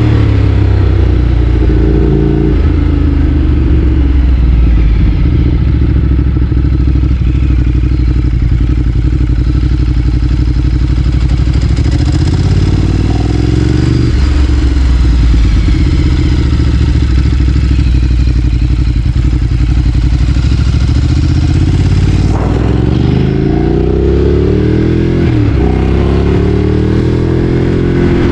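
Ducati Streetfighter 848's L-twin engine riding at steady revs, with a few changes in pitch as the throttle and gears change. About three-quarters of the way through the engine note falls and rises again in swoops, with one short dip in revs soon after.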